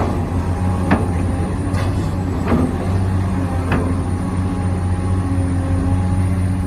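Steady low electric hum of a radio-controlled excavator's motors and hydraulic pump working, with a few sharp clacks along the way.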